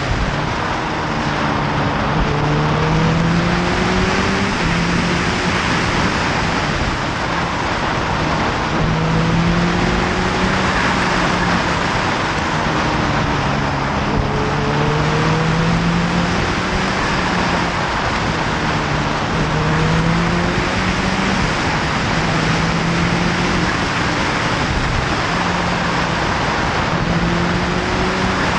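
Heavy wind and road noise on a motorcycle-mounted camera at speed, with the motorcycle engine underneath, its note rising again and again as it pulls up through the revs and drops back.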